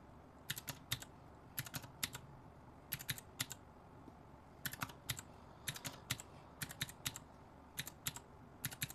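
Calculator keys tapped in quick bursts of two to four presses, about one burst a second, as figures are added up to a running total.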